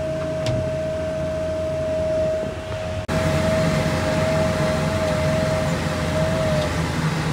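Snowblower attachment on a compact utility vehicle running and throwing snow: a steady high whine over a low engine drone. About three seconds in the sound cuts to a louder recording from the cab, where the whine wavers slightly and stops near the end.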